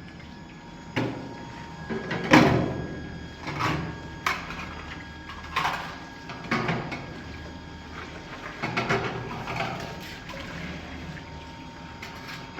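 A series of irregular knocks and clatters, about ten of them and the loudest about two seconds in, over a faint steady hum.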